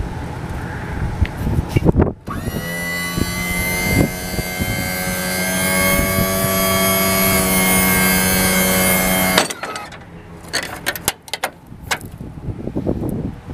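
Electric-hydraulic pump motor of a tuck-under truck liftgate running with a steady whine for about seven seconds, starting about two seconds in and cutting off suddenly. Wind noise on the microphone before it, and a few knocks and clicks after it.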